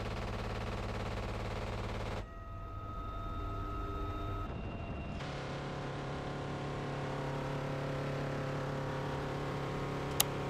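Steady drone of a UH-1Y Venom helicopter's rotor and turbines in flight, heard through the open cabin door. Its tone changes abruptly twice. A single sharp crack comes near the end.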